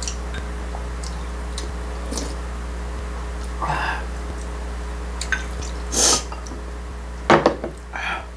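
Eating sounds: soft mouth noises and a short slurp from a bowl held to the lips, then sharp clinks of chopsticks against a ceramic bowl near the end, over a steady low hum.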